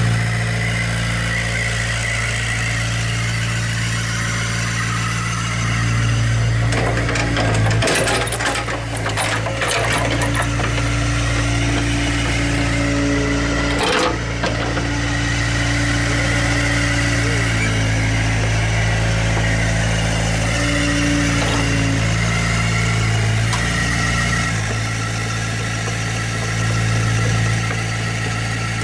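Volvo EC55B PRO mini excavator's diesel engine idling steadily, with a brief clatter of sharp knocks about eight seconds in and a single knock at about fourteen seconds.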